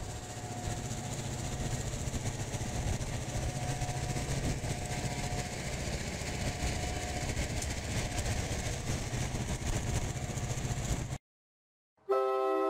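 EMD GP38-3 diesel locomotive's 16-cylinder two-stroke engine running as it rolls slowly past, a steady low rumble. It cuts off about eleven seconds in, and after a short silence a train-horn chord starts near the end.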